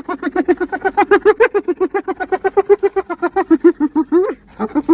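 An animal's voice: a rapid, even string of short pitched calls, about seven or eight a second, each one rising and falling. The calls break off briefly about four seconds in, then start again.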